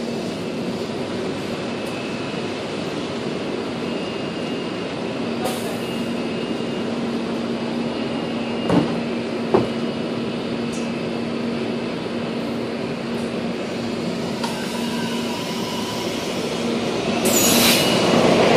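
SEPTA Silverliner electric commuter train standing at the platform with a steady hum, two short knocks about halfway through, then starting to pull away, its noise rising near the end.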